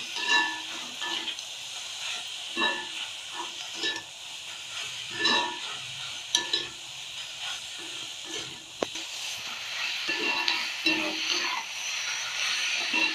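Chopped onions, tomatoes, whole spices and cashews sizzling in oil in a pan while being stirred with a metal slotted spoon, which scrapes and knocks against the pan every second or two. The sizzle grows a little louder in the last few seconds.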